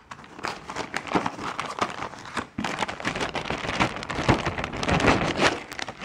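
Clear plastic bag crinkling and rustling as a coiled cable is pulled out of it. It sounds as a dense run of crackles that starts just after the opening and is loudest in the second half.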